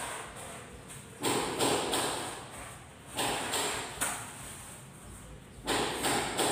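A series of short knocks and scrapes, about eight in three bunches, each fading quickly, from work on Styrofoam boards.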